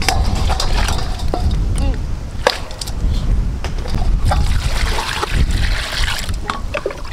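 Water being poured and sloshed over raw chicken gizzards in a steel bowl, with splashing and clinks against the metal. Wind rumbles on the microphone.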